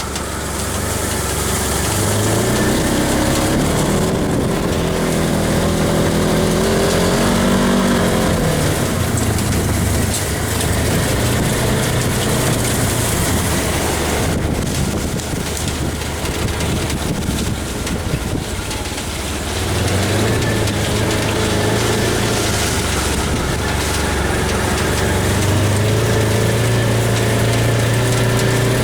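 Side-by-side UTV (Polaris RZR) engine running while driving, its pitch rising and falling with the throttle, with a rougher stretch of rumbling noise midway and a steadier drone near the end.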